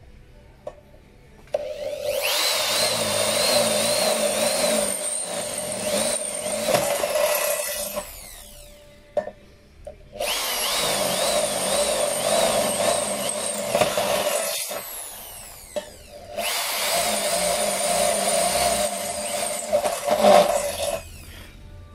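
Total 850W corded impact drill running at speed while a twist bit cuts into a steel plate. The drill runs three times for several seconds each, starting abruptly and spinning down in between.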